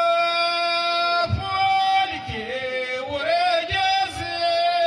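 A man's solo voice chanting a sung verse of ahwach poetry into a microphone. He holds one long steady note, then breaks into a wavering, ornamented line that rises and falls.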